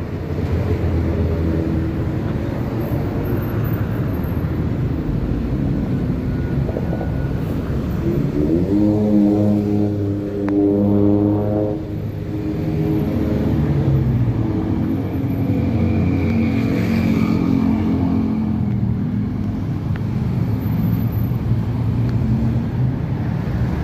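Road traffic passing on a wet city street, with a steady rumble of engines and tyres. About eight seconds in, one vehicle's engine rises in pitch as it accelerates, holds for a few seconds, then fades.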